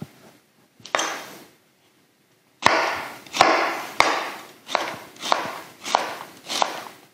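Chef's knife slicing a raw fennel bulb on a cutting board. There is one cut about a second in, then after a short pause a steady run of about seven cuts, roughly one and a half a second, each ending in a sharp click of the blade on the board.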